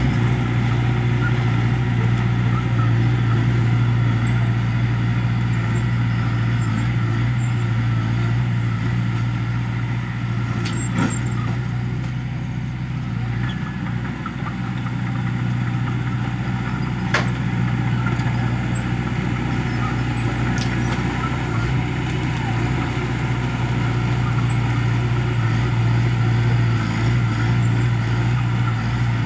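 Small Komatsu crawler bulldozer's diesel engine running steadily under load as it pushes dirt, easing slightly a little before the middle, with a few sharp clanks, the loudest about 17 seconds in.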